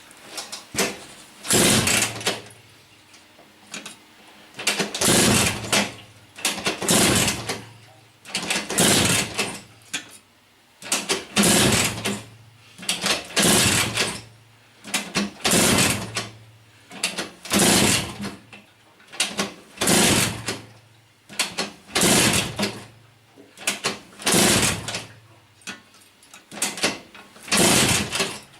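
Vyatka scooter's two-stroke single-cylinder engine being kick-started over and over, about one kick every two seconds. Each kick turns it over with a short clatter, but it does not keep running: the home-made piezo-crystal ignition is not firing it reliably.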